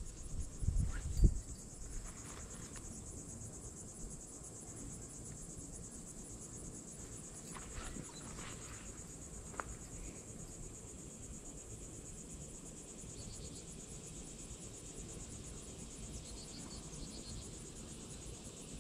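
Insects trilling steadily in a high, fast-pulsing drone. A few low thumps sound in the first second and a half.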